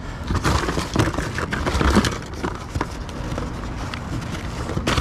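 Hands rummaging through a box of scrap wire and metal bits: irregular clinks, knocks and rustling, busiest about one to two seconds in.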